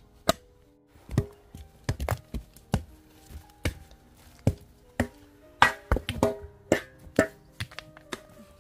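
Metal hoe blade chopping into hard, stony dirt: sharp, irregular strikes about two a second, over soft background music.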